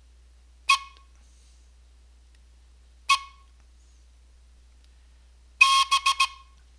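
Morse code sounded on a whistle in short blown tones: a single short pip, another a couple of seconds later, then near the end a longer tone followed by three quick short pips.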